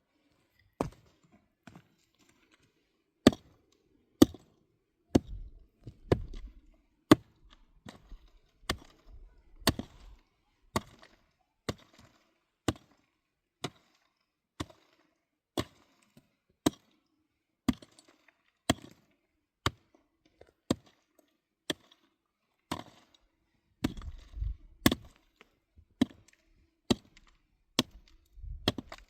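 Repeated sharp chopping strikes, about one a second and uneven in strength, with a low rumble twice in between.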